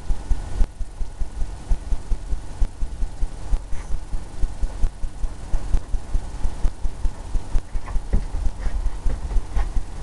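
A paintbrush stroking back and forth across a stretched canvas on an easel, giving a rhythmic low thudding with a light scrub, about three strokes a second.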